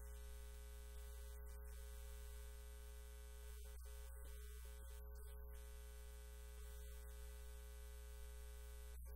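Faint, steady electrical hum, strongest in the low bass, with a few faint steady tones above it and no voice.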